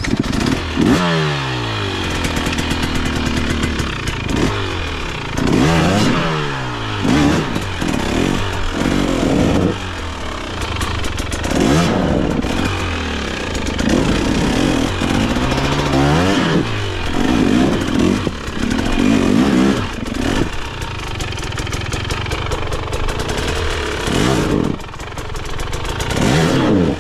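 KTM dirt bike engine revving up and down over and over, pitch rising and falling every second or two as the throttle is worked on a steep climb, settling into a steadier run after about twenty seconds.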